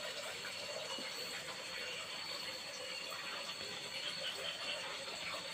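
Steady rushing of running or splashing water, with a thin steady high tone above it.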